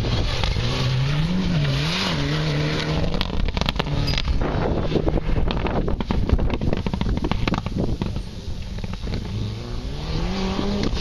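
Rally car engine revving hard on a gravel course, its pitch rising and falling repeatedly as it powers through a corner. The sound drops off after about eight seconds, and the engine revs up again near the end.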